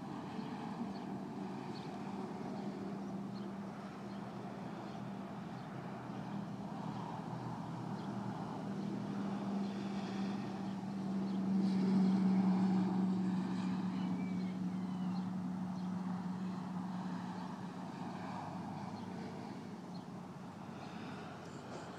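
Motor vehicle engine running with a steady low hum, growing louder toward the middle and fading away near the end.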